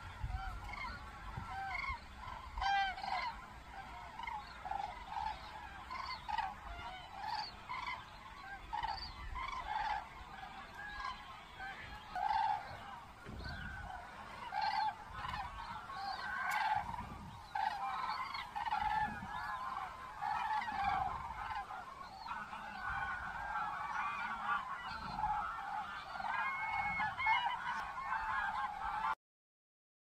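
A flock of common cranes calling in flight: many trumpeting calls overlapping without pause. The sound cuts off suddenly near the end.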